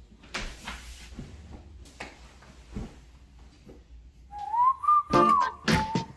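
A few faint knocks, then about four seconds in background music begins: a whistled melody over a drum beat.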